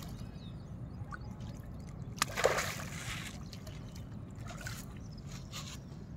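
Water sloshing and trickling, with one louder splash a little over two seconds in.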